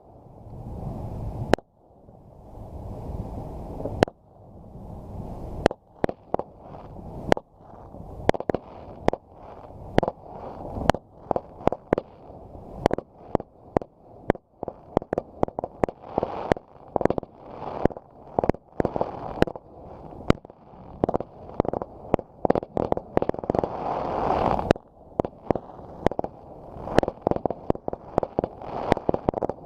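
Fireworks going off: a few widely spaced bangs at first, then a quickening barrage of overlapping bangs and cracks through the rest of the stretch.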